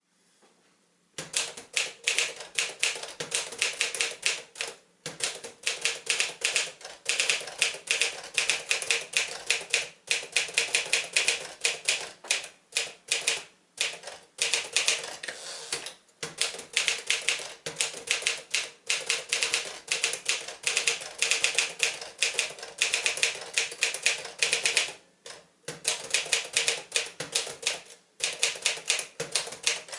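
Tower President portable typewriter (a Smith-Corona Silent-Super) being typed on: rapid runs of key strikes and typebar clacks, starting about a second in, with short pauses between bursts.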